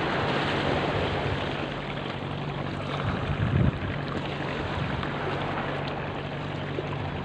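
Steady low hum of a boat engine under a rushing haze of wind on the microphone and water along the shore.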